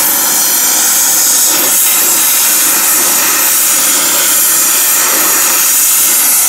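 Gas torch burning with a steady, loud hiss while heating a hardened steel shaft to anneal it.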